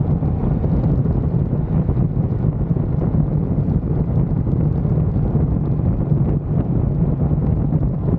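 Wind buffeting the microphone of a camera riding on a moving motorcycle, a steady low rumble, with the motorcycle's engine running underneath.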